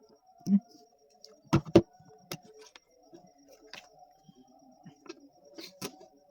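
Scattered clicks and light knocks of small hard objects being handled, the loudest two close together about a second and a half in, over a faint steady hum.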